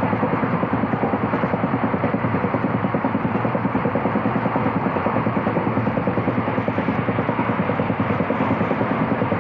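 Rapid, even pounding of a flat-spotted wheel on an ICF passenger coach running at speed, about eight thumps a second, over the steady rumble of the wheels on the rails. The beat is the sign of a wheel flat, a spot worn flat on the wheel tread.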